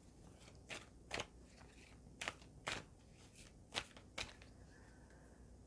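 A deck of oracle cards shuffled by hand: faint, irregular soft flicks and taps of the cards.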